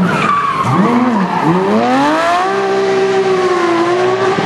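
Porsche 911 GT3 rally car's flat-six engine: the revs drop twice, with a short rise between, then climb for about a second and hold high and fairly steady.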